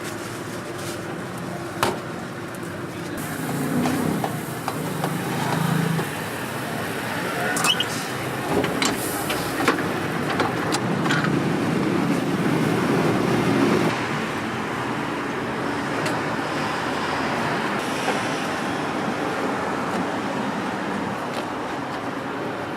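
Road traffic passing on a city street, swelling for several seconds in the middle, with scattered short clicks and knocks.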